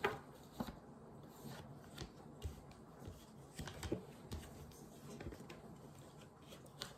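Tarot cards being handled on a table: scattered soft taps, slides and rustles as the cards are moved and laid out.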